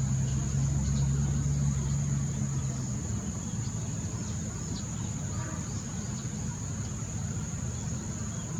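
A motor vehicle's engine running nearby as a low steady hum that fades out about three seconds in, leaving a low outdoor rumble. A steady high-pitched whine continues underneath.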